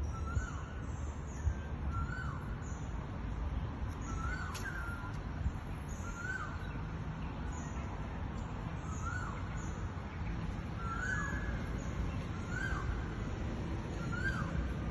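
A bird calling over and over, one short rising-and-falling note about every one and a half seconds, over a steady low rumble.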